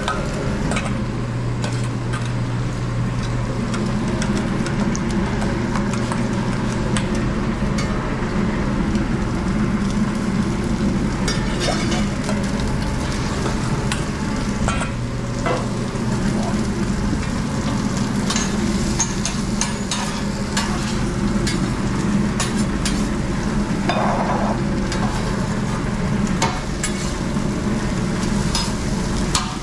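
Breakfast food frying and sizzling on a hot restaurant cooktop, with occasional clicks and scrapes of a utensil, over a steady low hum.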